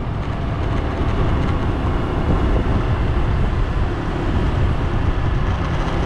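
Riding noise from a small scooter on the move: wind buffeting the microphone over the engine running steadily.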